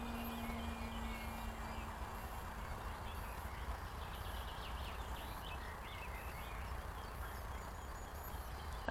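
Low wind rumble on the microphone. The faint steady hum of the electric RC plane's motor and propeller fades away in the first couple of seconds, and faint bird chirps come through now and then.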